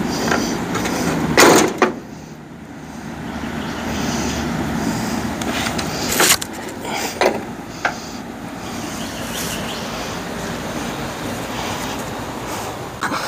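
Metal knocks and clanks as the hood of a 1950 Ford F1 pickup is pried off, over a continuous rough noise. The loudest knock comes about a second and a half in, with a few more about six to eight seconds in.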